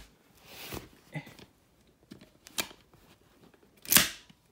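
Handling noise as airsoft guns are moved about: scattered light clicks and two short rustles, the louder one about four seconds in.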